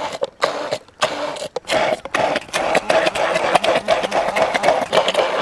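Immersion (stick) blender running in a tall beaker, puréeing thick arugula pesto. It starts and stops a few times in the first second and a half, then runs steadily.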